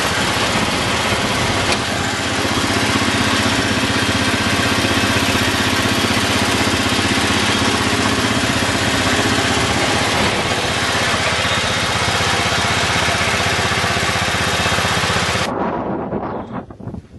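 Small vintage tractor's engine running steadily at a low speed through an upright muffler. The sound cuts off suddenly near the end.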